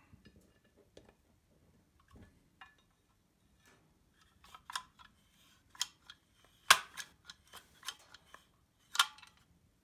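One-handed trigger bar clamp being worked to press nylon bushes into an aluminium throttle housing: irregular sharp clicks of the clamp's trigger mechanism and metal parts, sparse at first and more frequent and louder from about four seconds in.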